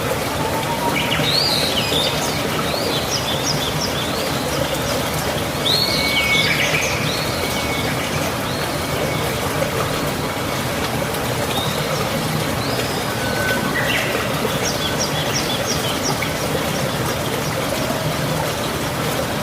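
Birds chirping and calling in short clusters, in two spells a few seconds apart, over a steady rush of falling or running rainwater.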